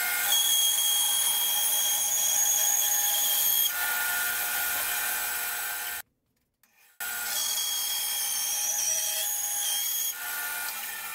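Band saw running and cutting through a block of figured maple, the blade noise topped by a steady high whine. The sound cuts off abruptly about six seconds in and comes back a second later, a little quieter near the end.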